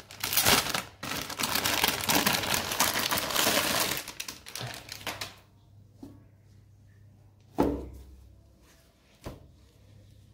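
Clear plastic poly bag crinkling loudly as it is opened and a pair of folded shorts is pulled out, for about four seconds. Then quieter handling, with two brief thumps later on.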